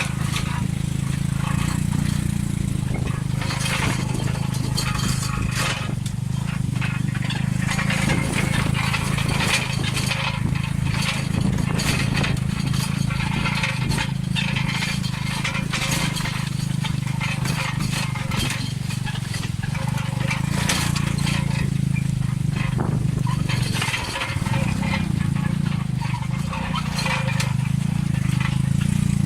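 Tuk-tuk's motorcycle engine running steadily, with constant irregular rattling and knocking as it drives over rough, bumpy off-road ground.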